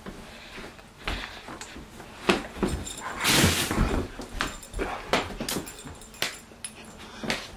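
Pit bull giving short whimpers and yips, with scattered sharp taps and a louder half-second rush of noise about three seconds in.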